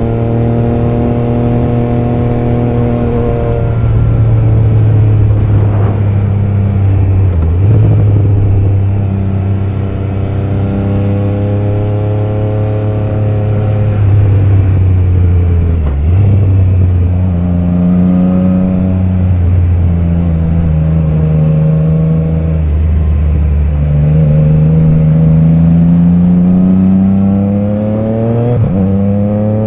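Triumph Trident 660's inline three-cylinder engine running under way, its pitch rising and falling with the throttle, with brief sudden drops in revs about a quarter of the way in, around the middle, and near the end.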